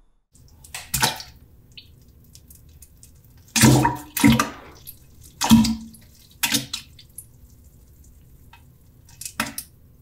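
Poop-splash sound effect: about ten wet plops and splashes of soft lumps dropping into toilet water, spaced irregularly, the loudest between about three and six seconds in. Made by dropping cooked oatmeal into a toilet bowl.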